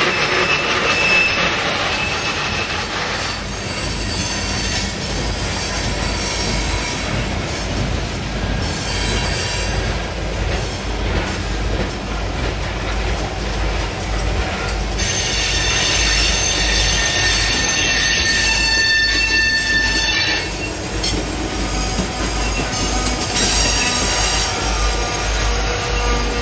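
Loaded coal hopper cars rolling slowly past with their steel wheels squealing on the rail. Two diesel locomotives at the rear of the train come by with a steady low rumble about halfway through, and the high squeal is strongest then.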